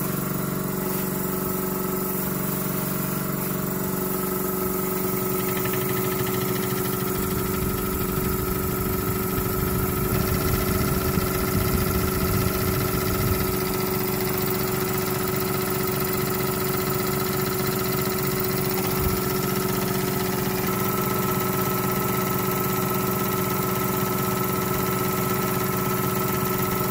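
Mamod SE2 model stationary engine running on compressed air from a small compressor: the single oscillating cylinder chuffs rapidly and the flywheel spins over the compressor's steady hum. It grows a little louder for a few seconds about a third of the way in.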